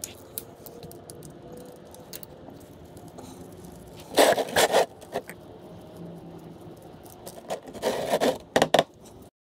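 Ratchet and short socket working the oil drain bolt loose on a Yamaha YZ250F engine: metal clicking and scraping, with two loud rattling bursts of ratchet clicks, one in the middle and one near the end.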